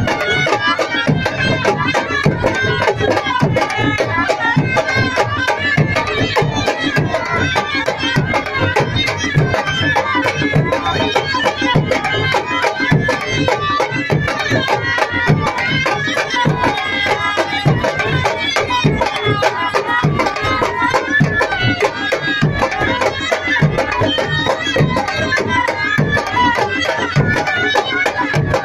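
Traditional folk music: a barrel drum beaten in a fast, steady rhythm, with horns playing a wavering melody over it.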